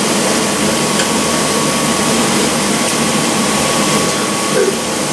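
Steady rushing noise of an electric fan running, with a faint steady whine, over food sizzling on an electric grill.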